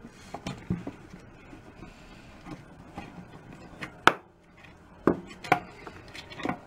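Scattered clicks and knocks from inside a wooden snare drum shell as the lug screws are worked out with a large screwdriver, metal tapping on the wood. The sharpest knock comes about four seconds in, with a few more near the end.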